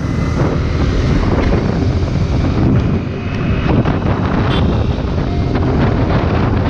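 Wind buffeting the microphone over the steady running of a Honda CBR250R's single-cylinder engine and tyre noise while riding at highway speed.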